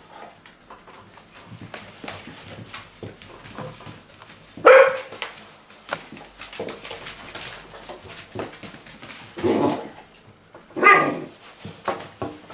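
Basset Artésien Normand puppies giving three short barks, about five, nine and a half and eleven seconds in, the first the loudest. Between the barks, light clicking and scuffling of paws on a tile floor.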